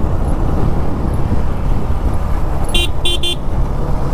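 Steady motorcycle engine and wind rumble while riding, with a horn giving three short beeps in quick succession near the end.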